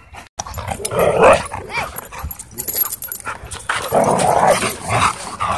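Dogs growling and barking while play-wrestling right at the microphone, loudest about a second in and again around four seconds in.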